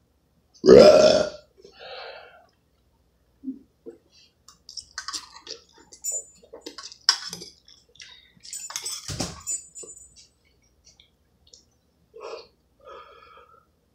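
A man belches loudly once, about a second in, then slurps and chews spaghetti with short smacks and small clicks of a fork in a metal pot.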